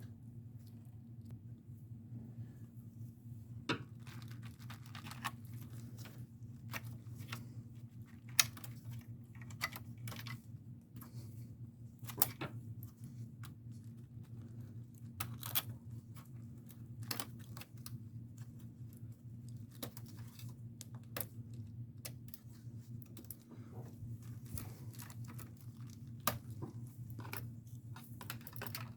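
Irregular light clicks, taps and scrapes of plastic parts and small tools being handled while an all-in-one computer is taken apart, over a steady low hum.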